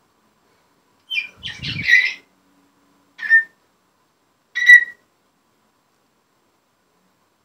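African grey parrot calling in three bursts: a longer warbling call about a second in, then two short whistles.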